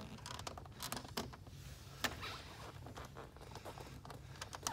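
Fingers scraping and tapping on a wire mesh grille, a scatter of faint small clicks and scratches, with a sharper tick about two seconds in and another near the end.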